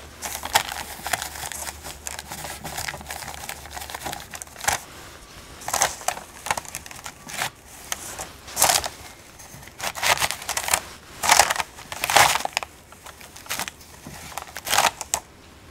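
Cotton tea towel rustling and crinkling in irregular bursts as hands grip and work a hot adjustable stainless-steel square ring mold to loosen it from baked shortbread.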